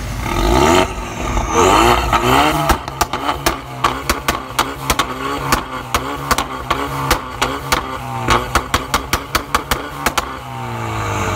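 Ford Mustang 2.3 EcoBoost turbo four-cylinder with an aftermarket valved exhaust, valve open, revved twice, then blipped over and over. Each blip sets off sharp exhaust pops and crackles, several a second, that stop about ten seconds in. These are the pops and bangs of its stage 2 tune.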